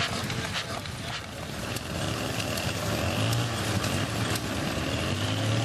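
Old stationary engines running, a low steady hum with scattered knocks.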